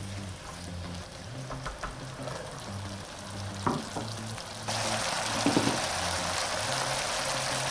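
Sliced carrots, shallots, garlic and onion sizzling and simmering in a little water in a frying pan, with a couple of light knocks about halfway through. About two-thirds of the way in, a louder, steady sizzle starts suddenly.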